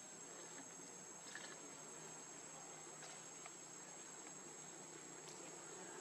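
Faint, steady, high-pitched insect chorus, like crickets or cicadas, with a few faint clicks.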